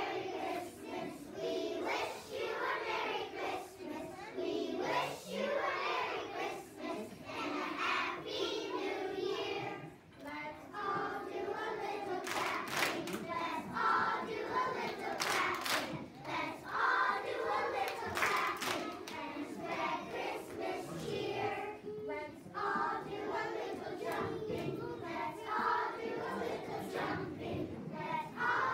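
Children's choir singing together in a hall, with a few sharp hand claps around the middle.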